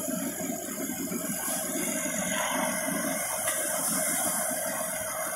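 Fire engine running at a fire scene: a steady mechanical hum with a constant hiss over it, and faint indistinct voices underneath.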